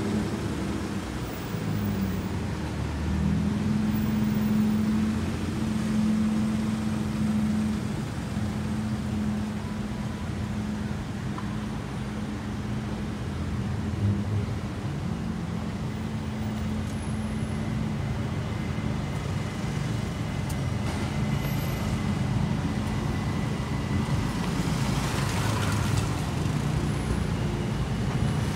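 Street traffic: engines of cars queued and creeping along a city road, a steady low rumble with a held hum, and a brief hiss near the end.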